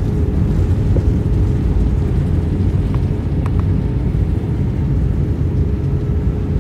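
Cabin noise of an Airbus A320-family airliner rolling along the runway after touchdown: a steady low rumble of engines and wheels, with a faint steady hum.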